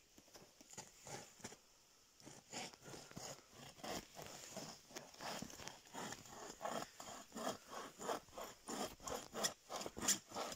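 Footsteps crunching in snow at a walking pace, then near the end a folding bow saw cutting into a rotten tree stump with quick, regular back-and-forth strokes.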